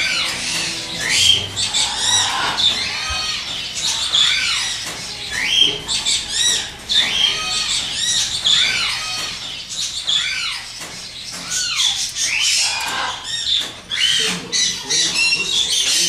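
Many caged parrots squawking and calling over one another: a steady stream of short, shrill, arching calls that rise and fall in pitch.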